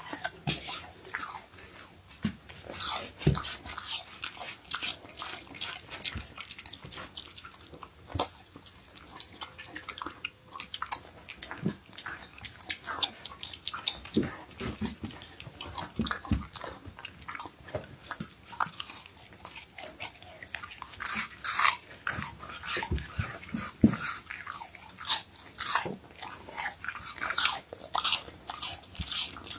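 Siberian husky biting and chewing apple: irregular crisp crunches with wet chewing between them, coming thicker and louder in the last third.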